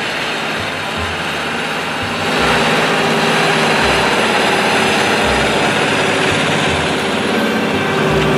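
Big John Deere four-wheel-drive farm tractor's diesel engine running under load while it pulls a disc cultivator, getting louder a couple of seconds in as it comes close. A steady hum comes in near the end.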